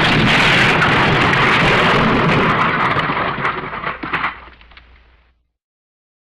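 A loud, sustained crash: the "elephant smash" sound effect, a long rumbling smash of breaking debris. It dies away over the last couple of seconds and then cuts to silence.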